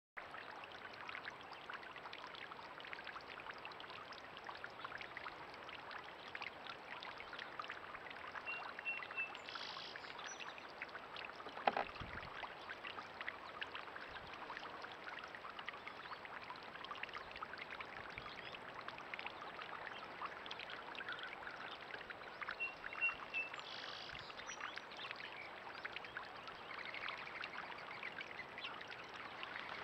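Small garden-pond fountain jet splashing steadily back into the pond water, with one sharp click about twelve seconds in.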